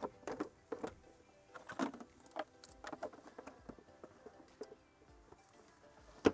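Jeep Wrangler JL's plastic stock airbox knocking and clicking as it is pushed down into its rubber mounts in the engine bay, ending in one sharp click near the end. Faint background music underneath.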